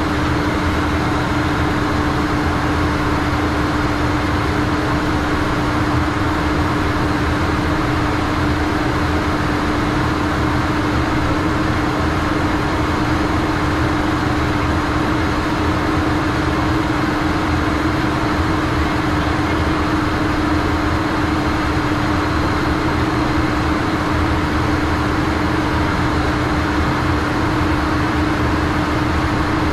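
Steady flight-deck noise of a Learjet in flight: rushing airflow and the drone of its rear-mounted turbofan engines, with a constant low hum running under it.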